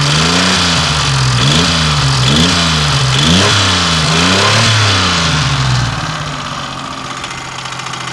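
1992 Geo Metro's three-cylinder engine revved up and down about five times, then dropping back to idle about six seconds in. It has a persistent engine knock that the owner cannot explain although the ignition timing is correct; the same knock preceded a blown number 1 piston in an earlier Metro engine.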